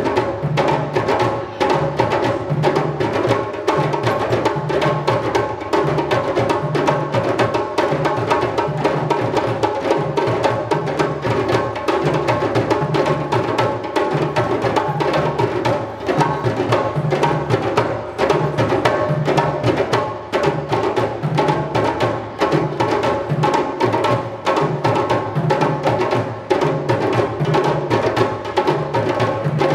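West African drum ensemble playing: several djembes struck by hand over a steady low pattern from dunun bass drums played with sticks, in a fast continuous rhythm.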